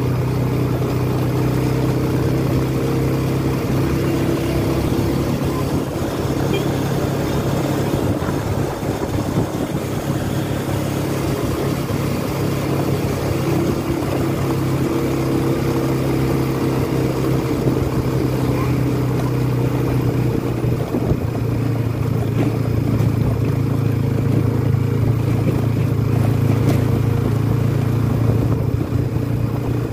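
Vehicle engine running steadily at cruising speed, with road and wind noise, heard from on board. Its pitch holds fairly even, with small shifts as the speed changes.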